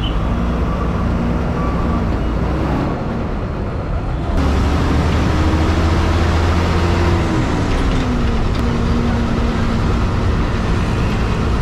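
Inside a city bus on the move: the diesel engine and road noise run steadily. About four seconds in the sound abruptly gets louder with a deep hum, and the engine note climbs as the bus pulls ahead, then drops back.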